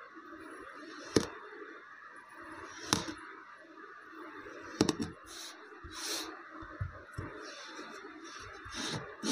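A thin knife blade slicing through a ball of kinetic sand. Each cut ends in a sharp tap of the blade on the table, about every two seconds, with softer crumbling scrapes after the last cuts, over a steady faint hiss.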